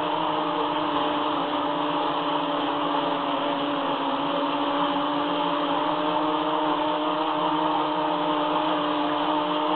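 Brushless motors and propellers of a 250-size FPV racing quadcopter in flight, a continuous buzzing hum with a few steady tones at near-constant throttle.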